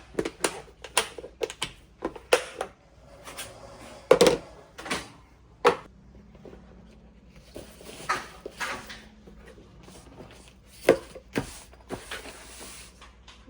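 Household handling noises: a run of sharp knocks and clicks, with stretches of rustling in between.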